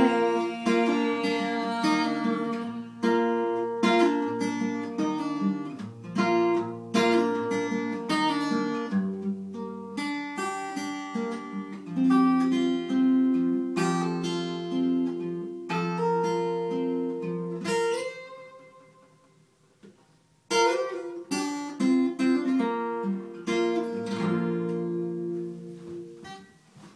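Acoustic guitar strumming and picking chords as the closing instrumental of a song. About eighteen seconds in the playing dies away almost to silence, then a few more chords come in and are left to ring out at the end.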